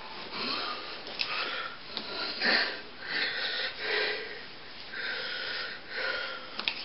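A person breathing and sniffing close to the microphone: a string of short breathy noises, about one a second, with a few faint clicks.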